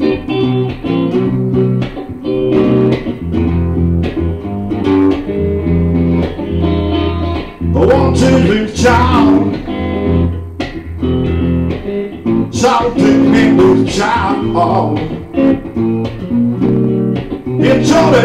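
Electric guitar playing an instrumental break between sung verses, in a bluesy style, with plucked notes over a steady low bass line. Wavering, bending notes stand out around the middle and again later.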